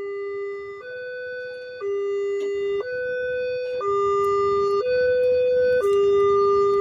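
Railway level-crossing warning siren from a loudspeaker: an electronic two-tone alarm switching between a high and a low tone about once a second, growing louder, over a faint rumble of traffic.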